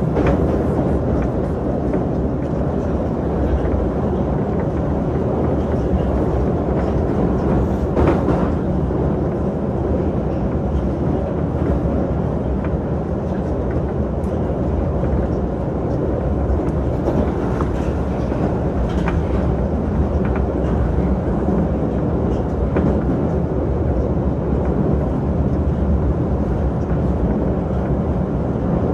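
Moscow 2020 metro train running between stations in the tunnel, heard from inside the car: a steady, loud rumble of wheels and running gear, with a few sharp clicks.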